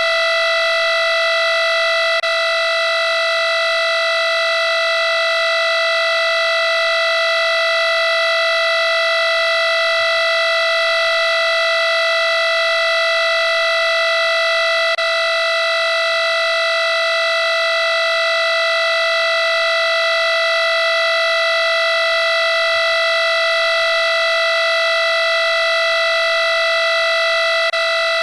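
Digital alarm clock tone: a loud, continuous electronic buzz held at one steady pitch with a harsh, overtone-rich edge, unbroken and unchanging.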